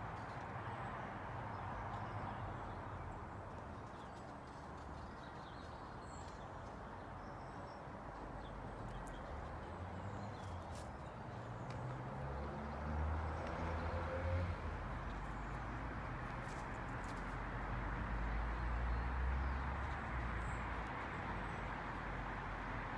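Steady outdoor background noise with a low rumble that swells for several seconds past the middle, and a few faint high clicks.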